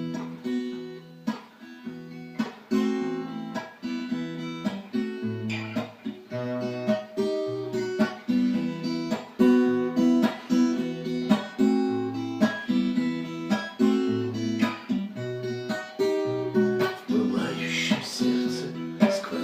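Acoustic guitar playing a song's introduction: picked and strummed chords in a steady rhythm, with a lower bass line joining about five seconds in.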